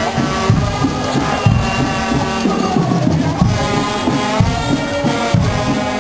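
Guggenmusik carnival band of brass and drums playing, loud and steady, with a regular drum beat under the horns.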